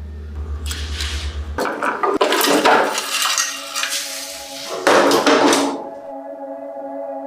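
Two bursts of metal knocking and clattering, as of parts being handled and struck in a workshop, over a low humming drone that stops about a second and a half in. Near the end, ambient music with held steady tones comes in.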